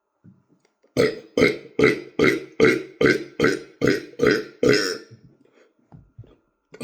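A rapid chain of about ten short, loud burps, roughly two and a half a second, stopping about five seconds in; a long burp starts right at the end.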